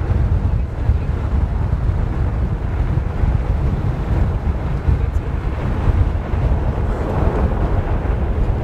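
Wind buffeting the microphone of a camera held out of a car window, a steady low rumble with gusts.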